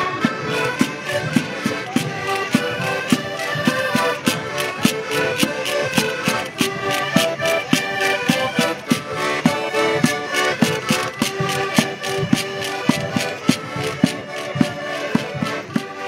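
A band of accordions playing a lively folk tune together over a steady percussion beat, fading out near the end.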